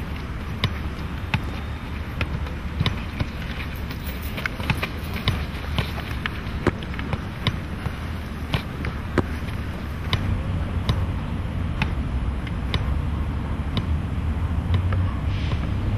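Football being juggled: sharp taps of foot and knee on the ball, about one to two a second, over a steady low rumble of wind on the microphone.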